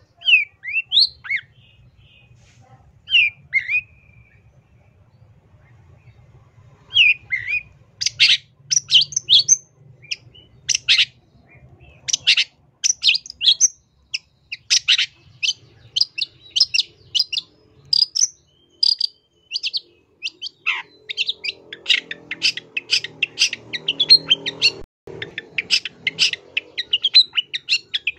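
Long-tailed shrike singing: a few sliding whistles at first, then from about seven seconds in a fast, continuous run of sharp, chattering high notes.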